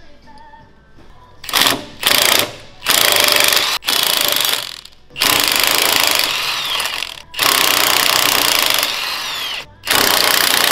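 Cordless impact wrench hammering on bolts in repeated bursts, about seven runs of one to two seconds with short pauses between, starting about a second and a half in, as the truck's front end is unbolted.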